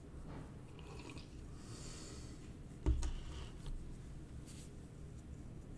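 Faint handling noises in a quiet room, with one sharp knock just before three seconds in and a softer one shortly after.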